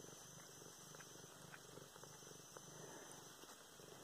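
Domestic cat purring faintly and steadily, with a few small clicks from licking its paw.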